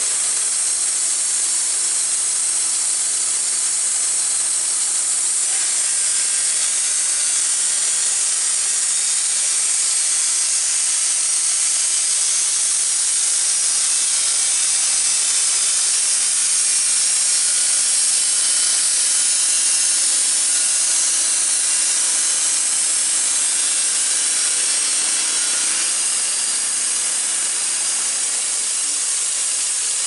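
Wood-Mizer LT15 band sawmill cutting through a maple log: the engine runs under load while the band blade hisses steadily through the wood. A low hum under the hiss drops away near the end.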